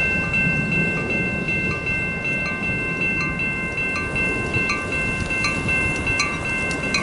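Grade-crossing warning bell ringing in rapid, regular strokes, about two to three a second, over the low rumble of an approaching Metra diesel commuter train. Near the end, sharp clicks come in as the train reaches the crossing.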